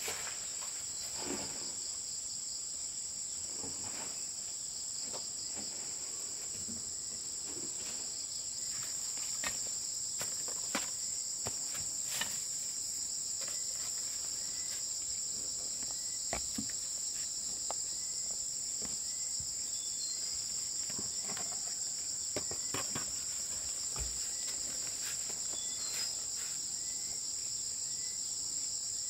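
Steady high-pitched insect chorus, with scattered light knocks and clicks over it.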